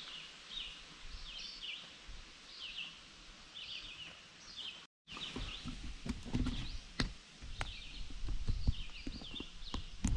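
A songbird singing short, high, repeated phrases about once a second over outdoor background noise. After a brief dropout about halfway through, a low rumble and several sharp knocks join in.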